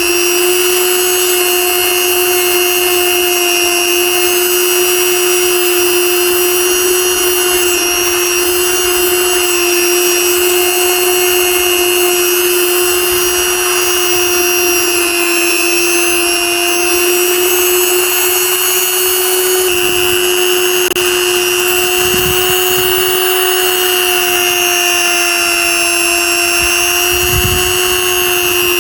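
Small handheld electric power tool running steadily: a constant motor whine whose pitch wavers slightly, with a couple of brief low bumps in the last third.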